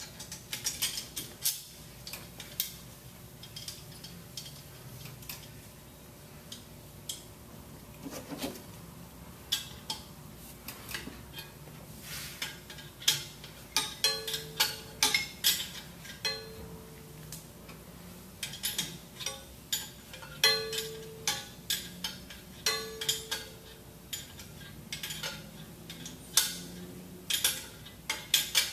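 Stainless steel parts of a pump motor clinking and knocking as the housing tubes are fitted by hand: many sharp metal clicks, a few in the second half with a short ringing tone.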